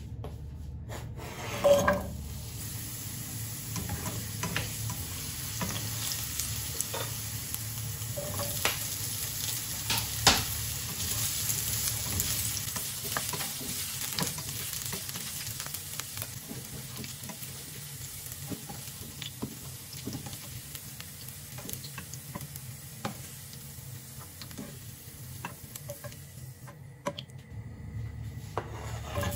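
Diced potatoes and carrots frying in oil in a nonstick pan: a steady sizzle with the scraping and tapping of a spatula stirring them. Two sharp knocks of the utensil on the pan stand out, about two seconds in and about ten seconds in.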